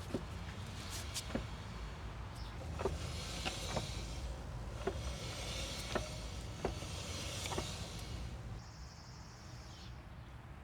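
Tesla Model Y rolling along with no engine sound, its rear brakes giving irregular sharp clicks about once a second over a hissing scrape that swells and fades, and a faint high steady whine near the end. The owner attributes the noise to the rear brakes, and cleaning and burnishing them has not cured it.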